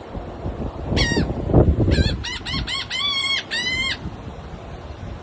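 Laughing gulls calling: a single call about a second in, then a quick run of about six calls, the last two held longer. Wind buffets the microphone underneath.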